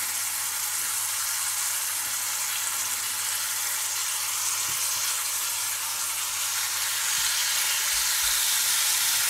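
Thin slices of beef sizzling in hot butter in a stainless steel frying pan: a steady frying hiss that grows a little louder about seven seconds in, as another slice is laid into the pan.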